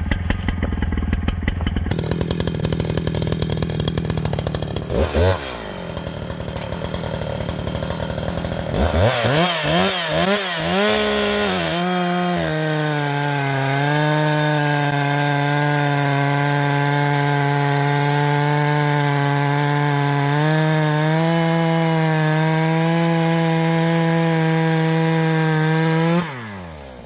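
60cc professional two-stroke chainsaw running, revved briefly, then revved up and down a few times. It is then held at a steady full-throttle whine for about fourteen seconds through a cut, and the throttle is released near the end, the pitch falling away.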